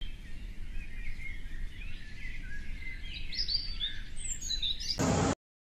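Birds chirping with short gliding calls over a low rumble, ended about five seconds in by a brief loud rush of noise that cuts off suddenly into silence.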